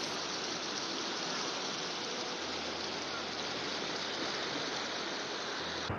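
Fast-flowing floodwater rushing down a flooded street: a steady, even rush of water with no let-up.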